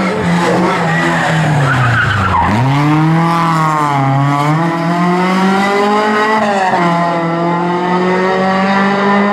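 Rally car engine held at high revs, dipping sharply about two seconds in then climbing back and wavering, with tyres skidding and squealing on the surface.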